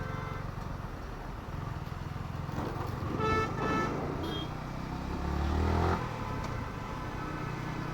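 Yamaha R15 V4's single-cylinder engine running at low revs in traffic, with two short honks of a vehicle horn a little over three seconds in, then an engine rising in revs briefly about five to six seconds in.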